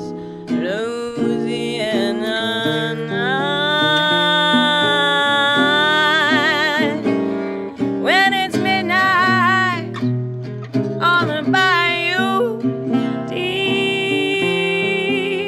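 A woman sings a slow melody with wide vibrato, holding long notes, accompanied by chords on a Selmer-Maccaferri-style gypsy jazz acoustic guitar with an oval soundhole.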